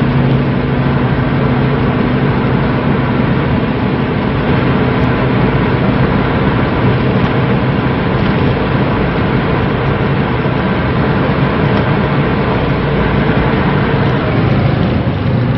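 Seat Ibiza mk2's 90 hp 1.9 TDI four-cylinder turbodiesel pulling hard at high speed, flat out in a high gear, under a steady rush of wind and road noise. The engine's low tone blurs into the noise after the first second or two.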